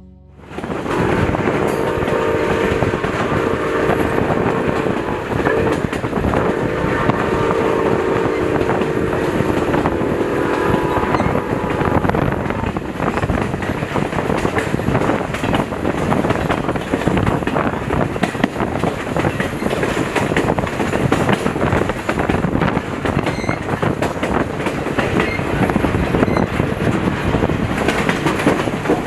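Milwaukee Road 261, a 4-8-4 steam locomotive, and its train running, with wheels clattering over the rails. Its whistle sounds in two long blasts during the first ten seconds or so.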